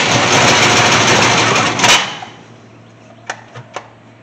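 Chevy truck engine, just converted from throttle-body injection to a carburetor and primed with a spray down the carb, cranking and catching briefly. It stops abruptly about two seconds in, starved of fuel. A few light clicks follow near the end.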